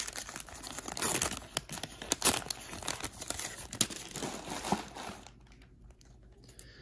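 Wax-paper wrapper of a 1985 Topps football pack being crinkled and torn open, a dense run of crackles that stops about five seconds in.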